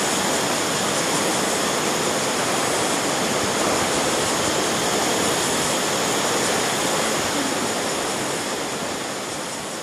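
Steady rushing of river water, fading out near the end.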